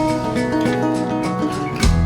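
Background music led by an acoustic guitar playing plucked and strummed notes; the low bass drops out and comes back with a strong hit near the end.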